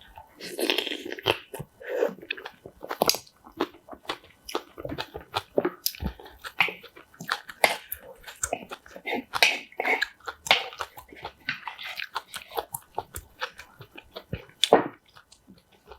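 Close-miked eating sounds: a person chewing and biting food in a steady run of short crunches and wet mouth clicks.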